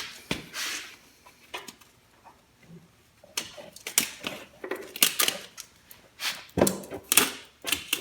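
Irregular knocks, clicks and clatter of things being handled and set down, sparse at first and busier over the second half.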